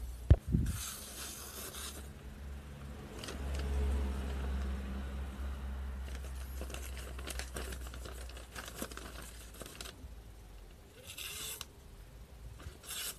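Small double-edged knife slicing through paper in short scratchy cutting strokes, the first about a second long near the start and two more near the end. A sharp knock comes right at the start.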